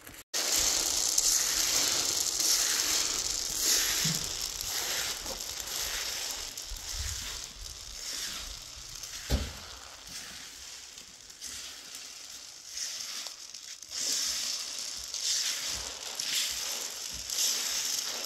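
Dried wild pistachios rattling and rustling as they are swept and rolled by hand across metal trays, in repeated strokes.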